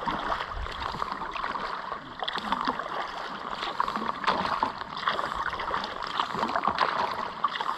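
Water splashing and gurgling around a kayak on a river as it is paddled, with irregular small splashes from the paddle blades.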